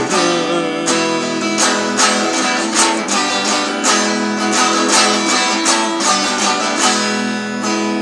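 Acoustic guitar strummed in a steady rhythm of about two strokes a second, the chords ringing between strokes.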